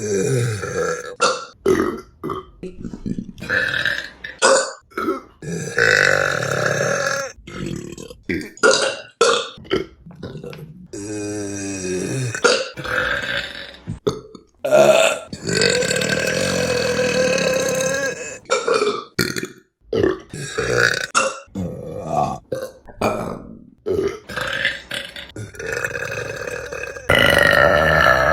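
A string of loud burps from different women, one after another: many short, a few long drawn-out ones lasting several seconds.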